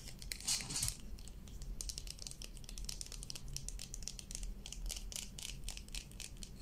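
Long fingernails tapping and scratching quickly on a cream tube, a steady run of crisp little clicks several times a second, with a brief louder rustle of the tube about half a second in.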